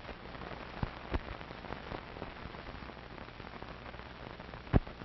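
Surface noise of an old optical film soundtrack with no music or speech: steady hiss and a low hum, broken by scattered clicks and pops, with one loud pop near the end.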